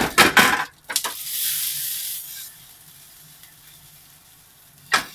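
Nori-wrapped chicken mince rolls frying in oil in a frying pan as the lid comes off: a clatter of handling, then a high sizzle for about a second and a half that dies away. Another clatter of the pan near the end.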